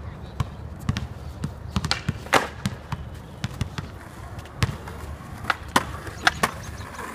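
Basketball dribbled on a hard outdoor court, a string of sharp, uneven bounces. Under it runs a low steady rumble of a skateboard's wheels rolling over the court.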